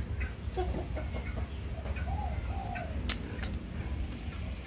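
Soft bird calls in the background, a pair of short arched notes a little after two seconds in, over a low steady rumble. A single sharp click about three seconds in.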